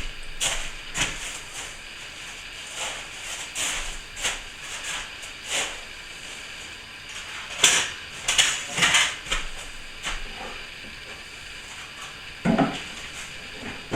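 Plastering trowel scraping and spreading compound over a ceiling joint in repeated short strokes, with a duller knock near the end.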